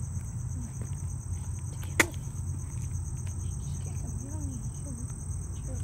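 Crickets chirping in a steady, high, pulsing trill over a low rumble, with one sharp click about two seconds in.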